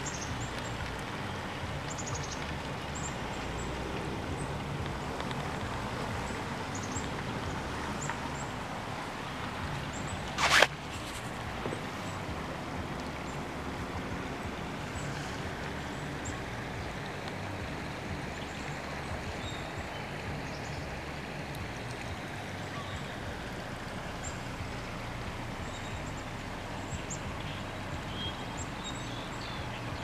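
Steady outdoor rush of a flowing stream, with faint short high chirps scattered throughout. One sharp knock about ten and a half seconds in.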